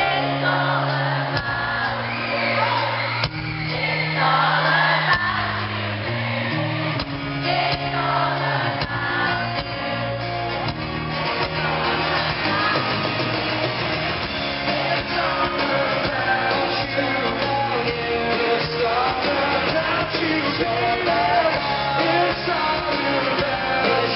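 Live pop-rock band playing with singing and shouting voices, heard from the audience in a large arena hall.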